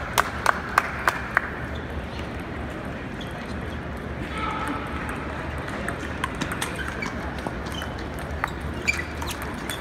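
Table tennis balls clicking off paddles and tables, a quick run of sharp clicks about three a second at the start, then fainter scattered clicks, over the steady murmur of voices in a busy hall.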